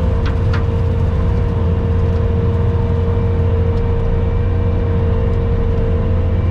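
Skid steer engine running steadily under load with its hydraulic bush hog (rotary brush cutter) spinning: a heavy low drone with a steady whine over it. A couple of short sharp ticks in the first second, typical of debris striking the cutter.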